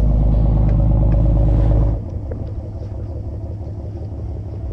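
A boat engine running with a steady low drone; about two seconds in its level drops suddenly, and it runs on steadily but quieter.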